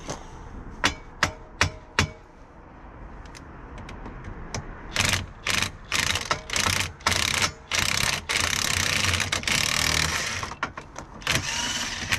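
Four sharp metal clinks, then a cordless impact wrench rattling in repeated short bursts and one longer run of about two seconds, driving the bolt that holds the ball joint in a Can-Am X3's steering knuckle.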